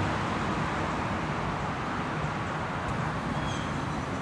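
Steady distant traffic rumble, an even outdoor noise with no single vehicle standing out. A faint short high chirp sounds about three and a half seconds in.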